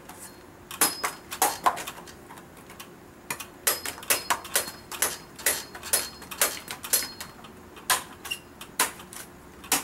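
Long-bladed knife chopping into the husk of a young Nam-Hom (aromatic) coconut in a run of sharp strikes, about two or three a second, with a short pause around two seconds in.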